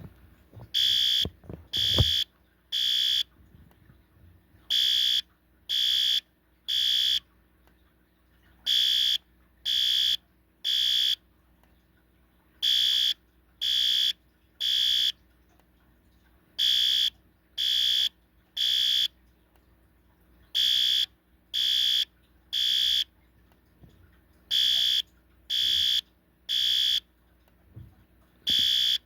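System Sensor L-Series electronic horn strobe sounding the temporal-3 code: three high-pitched beeps about a second apart, then a short pause, the group repeating every four seconds. Temporal-3 is the standard fire evacuation signal.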